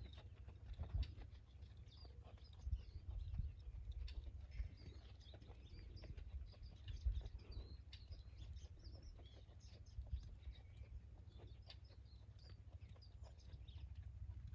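Small birds chirping in the background over a steady low rumble, with a few irregular low thumps.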